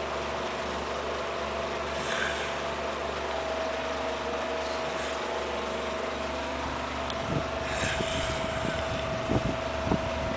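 A man snoring in his sleep, a noisy breath about every three seconds over a steady hum, with a few soft knocks near the end.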